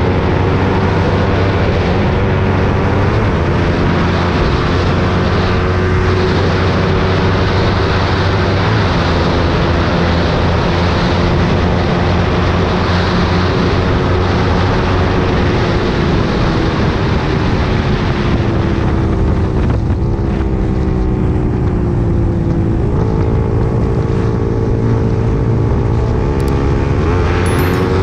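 Motorcycle engine running at steady cruising revs under heavy wind rush. About two-thirds of the way through, the engine pitch drops and then climbs again as the throttle is eased and reopened.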